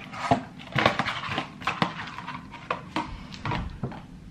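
Handling noise at a bathroom counter: a series of short clicks, taps and rustles as a cardboard pregnancy-test box and small items are picked up and moved.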